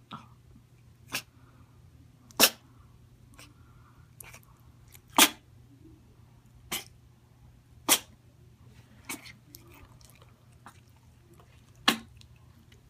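A pet sneezing over and over, about nine short, sharp sneezes one to three seconds apart, some louder than others.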